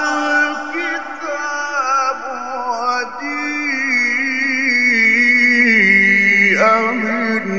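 A male Quran reciter in the melodic mujawwad style, one voice drawing out long ornamented notes. It moves through stepped pitch turns, holds a long steady note through the middle, then swoops down and back up near the end.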